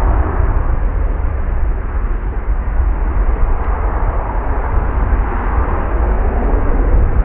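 Jet engine noise from an Airbus A320 close by: a loud, steady rumble with a heavy deep low end.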